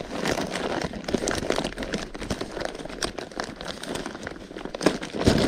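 Rustling and scattered light clicks of hands handling plastic fishing-tackle packs while searching for a hook.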